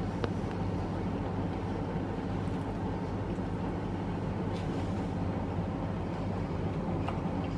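Electric oven running with a steady low hum and hiss while a pizza bakes on its stone, with a couple of faint ticks.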